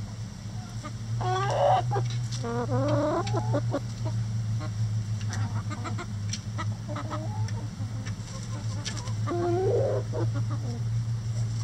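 Chickens clucking and calling in short, bending, squawky calls, several in a row about a second in and again near the end, mixed with light clicks.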